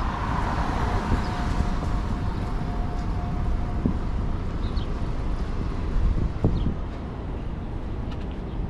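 City street traffic ambience: a steady low rumble of passing vehicles, with a faint steady whine for the first few seconds and a few faint, short high chirps.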